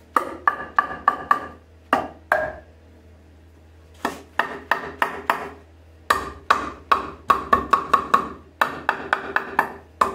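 Rubber mallet striking the wooden rails of a rocking chair frame to knock the glued joints apart: runs of quick knocks, about three to four a second, with short pauses between runs, each knock ringing briefly in the wood.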